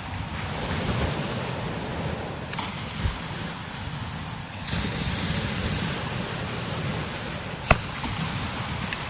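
Strong desert wind blowing in gusts that swell and ease. A short low thump comes about three seconds in, and a sharp click, the loudest moment, about three quarters of the way through.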